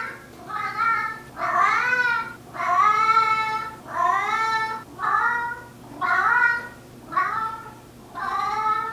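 A large tabby house cat meowing over and over: about eight drawn-out, varied meows in a row, each bending up and then down in pitch, the loudest in the first half.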